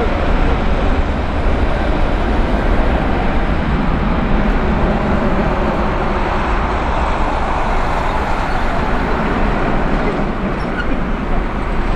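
Loud, steady jet noise from a Boeing 777-200LR's two GE90 turbofans at high thrust as the airliner rolls away down the runway on its takeoff run.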